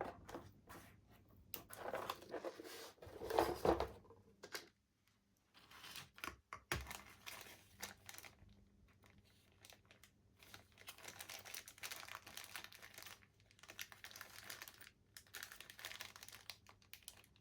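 Rummaging through small spare parts in search of a tiny nut: irregular plastic crinkling and rustling with light clicks and rattles, in bursts with short pauses.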